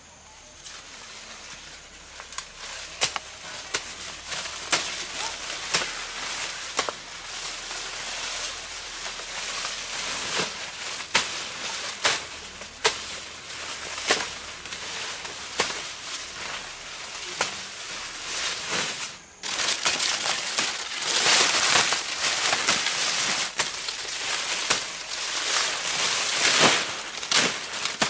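Dry corn stalks and leaves rustling and crackling as someone works through a dried-out corn patch harvesting, with sharp snaps roughly once a second. The rustling grows louder and denser about two-thirds of the way in.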